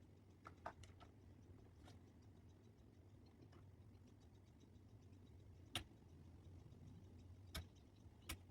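Near silence broken by about half a dozen faint, sharp clicks and taps of small parts being handled while the boot lid badge is swapped. The clearest clicks come near the end.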